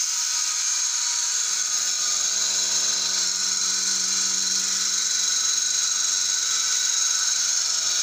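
Single-bucket milking machine's vacuum pump unit running steadily: an even high-pitched hiss over a low, steady hum.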